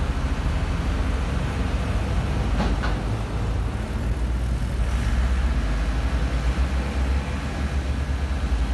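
Diesel engines of a Liugong 906F mini excavator and a flatbed tow truck running steadily with a deep rumble while the excavator's boom moves and the truck's bed tilts down for unloading. Two brief knocks come about two and a half seconds in.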